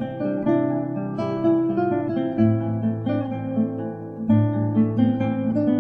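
Background music on acoustic guitar: plucked notes over a low bass line that changes a few times.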